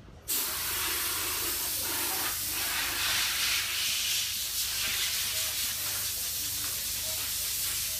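A loud, steady hiss that cuts in abruptly just after the start and holds with little change.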